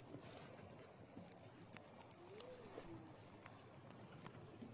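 Near silence: faint background hiss with a few faint ticks, and a short faint tone that rises and falls about halfway through.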